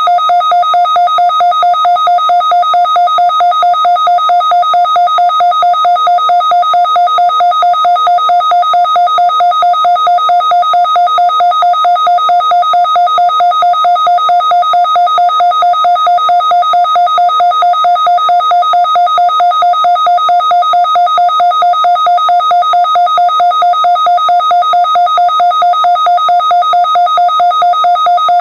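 Midland NOAA weather alert radio sounding its alert tone for a weekly test: a loud, steady electronic beep that pulses rapidly and evenly.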